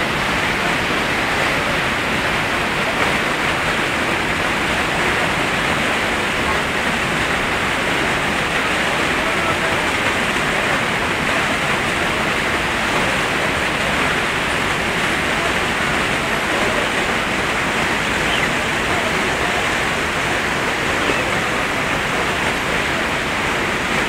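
Steady rush of the Beas River's white-water rapids.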